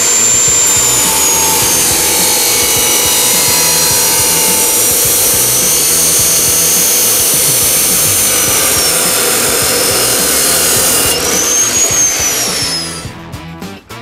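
Bosch abrasive chop saw cutting through metal: a loud grinding rasp over a high motor whine that sags slightly under load. About eleven seconds in the cut ends, and the whine rises briefly, then falls away as the blade spins down.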